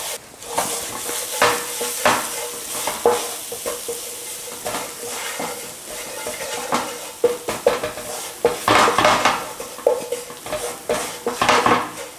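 Wooden spatula scraping and stirring ground spices and garlic-ginger paste around a ceramic-coated frying pan, in quick irregular strokes. Under it is a light sizzle of the spices blooming in a little hot oil.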